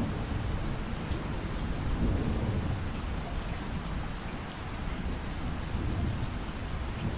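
Steady rain falling, with a low, uneven rumble underneath.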